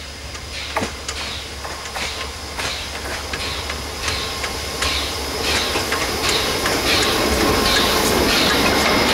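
Small steam locomotive hauling passenger carriages past at slow speed, with a regular beat and wheels clicking over the rails, growing louder as it approaches.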